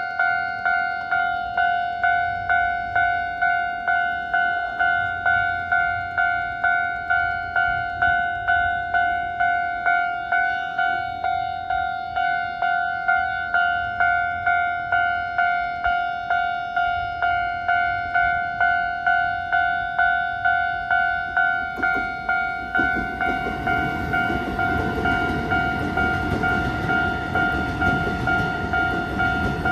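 Japanese level-crossing warning bell ringing its repeated electronic ding, a little under twice a second. From about 22 seconds in, a passing train's rumble builds up under the bell.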